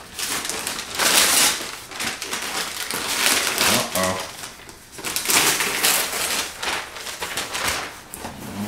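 Gift wrapping paper being torn off a present in several loud rips, with crinkling and rustling in between.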